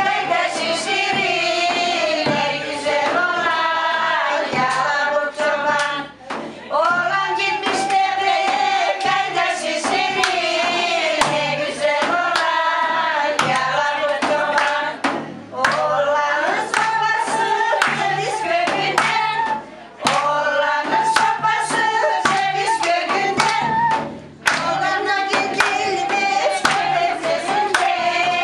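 A group of women singing a traditional Thracian folk song together, in phrases separated by brief pauses, with hand claps.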